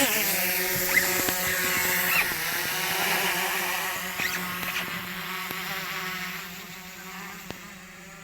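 Hubsan Zino Pro quadcopter's propeller motors running at take-off power, a steady multi-pitched buzz that fades gradually as the drone climbs away.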